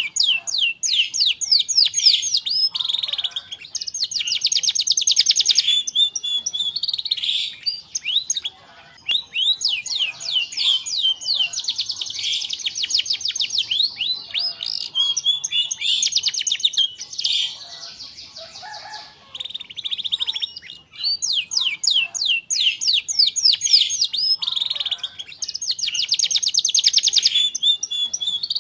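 Domestic canary singing in full voice: long phrases of rapid trills and rolls of fast repeated high notes, broken by a couple of short pauses between phrases.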